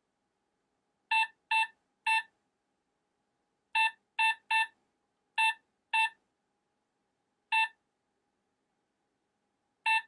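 Touch keypad of a Hornbill smart deadbolt beeping once for each key pressed as a passcode is entered: about ten short beeps of the same pitch, in uneven groups of three, three, two, then single beeps.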